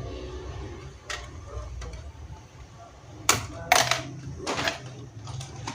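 Sharp clicks and knocks of small laptop parts being handled and pried loose during disassembly, with the strongest snaps a little past halfway through.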